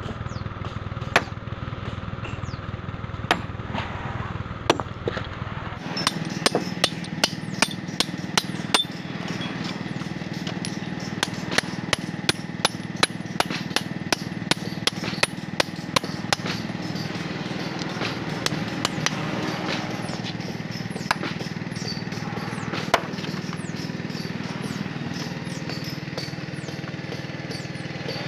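Hammer striking a hand-held steel chisel against a stone slab, cutting a hole for splitting wedges: sharp metallic knocks in a fast, even run of about two to three a second, then slower, scattered blows toward the end.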